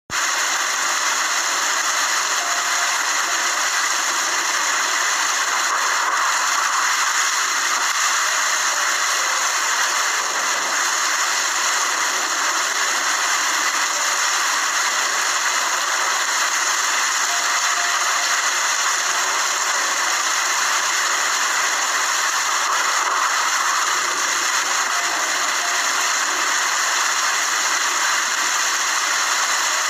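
Rain falling steadily, an even hiss that holds at one level throughout.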